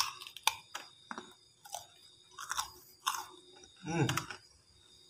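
Biting into and chewing a raw papaya stalk close to the microphone: a sharp bite, then irregular crisp crunches. A brief hum of the voice about four seconds in.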